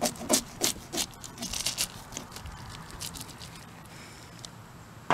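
A spoon scraping scales off a bass in quick rasping strokes, about three a second, loudest in the first two seconds and then fainter. A single sharp knock near the end.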